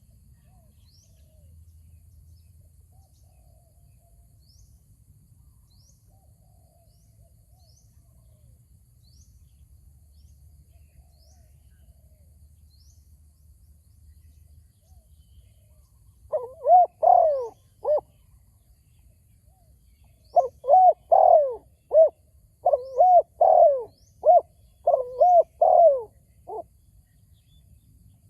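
Spotted dove cooing: a group of coos about 16 seconds in, then a run of repeated coos over the next six seconds. Before that there are only faint, short high-pitched chirps.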